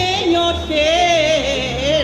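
Traditional Kalymnian bridal song: a woman's solo voice carrying an ornamented, wavering melody, with violin and lute accompaniment.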